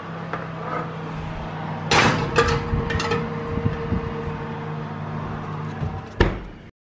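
Metal muffin tin clattering against the oven's wire rack as it is slid in, a few sharp clinks about two to three seconds in, then the oven door thudding shut near the end, over a steady low hum.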